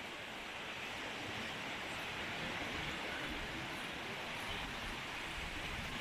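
Small surf waves breaking and washing up a sandy beach: a steady rush of water noise.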